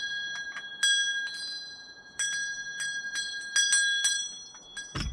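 Small brass ship's bell rung by hand, struck again and again at an uneven pace, with a quick flurry of strikes past the middle; each stroke leaves a clear, high ring that fades slowly.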